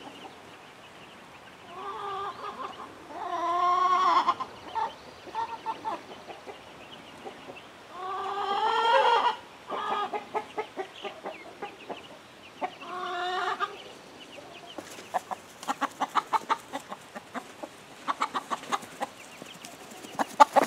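Chickens calling: three long, drawn-out calls a few seconds apart, then a run of short quick clucks, several a second, toward the end.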